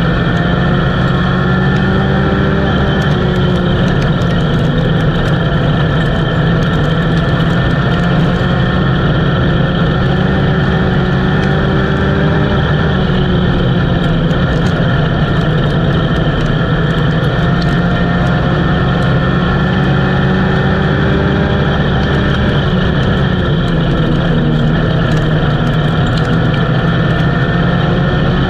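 Small dirt-oval race car's engine heard from inside the cockpit, running hard at racing speed. The engine note rises and falls gently every few seconds as the car goes round the laps, with scattered faint clicks over it.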